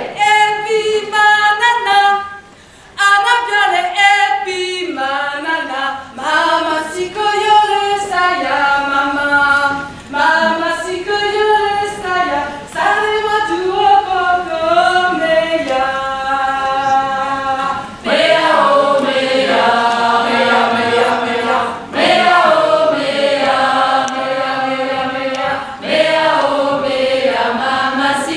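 Women's voices singing unaccompanied: a single voice carries the melody in short phrases at first, and a fuller group of voices takes over about eighteen seconds in.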